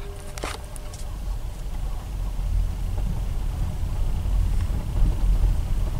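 Car rolling slowly in neutral with its engine off, a low rumble of tyres on the road that grows louder as it gathers speed. A sharp click about half a second in.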